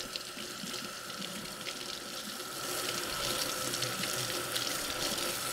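Kitchen tap running into the sink as a cutting board is rinsed under it; the water gets louder about two and a half seconds in.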